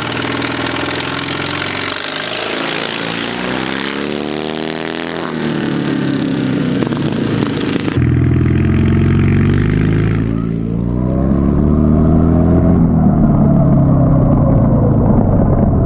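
Small racing engines revving and running hard. About halfway through, the sound changes abruptly to a louder, deeper engine note that climbs in pitch as it accelerates.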